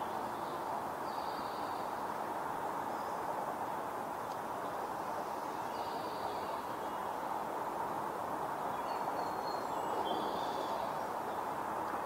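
Steady outdoor background noise with no clear source, with faint short bird chirps now and then.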